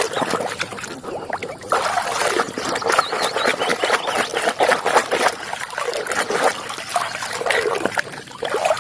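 Water splashing and trickling as a muddy toy is washed by hand, a dense run of small irregular splashes and drips.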